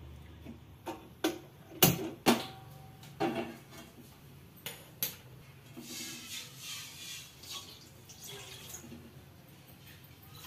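A metal kadhai is set on a gas stove's grate with several sharp clanks, then water is poured into it from a steel tumbler, splashing for about three seconds.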